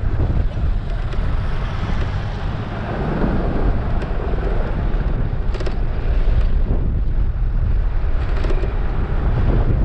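Wind buffeting the microphone of a rider on an electric bike running at speed, steady and heavy in the low end, with road noise under it. There are a couple of brief clicks, one a little past halfway and one near the end.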